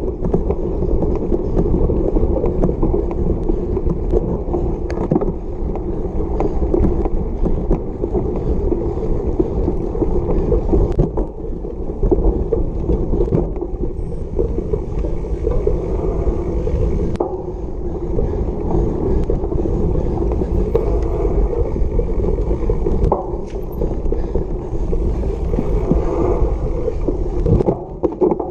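Cyclocross bike riding fast over bumpy grass: a steady, rough rumble of knobby tyres and a rattling bike, with frequent sharp knocks from bumps.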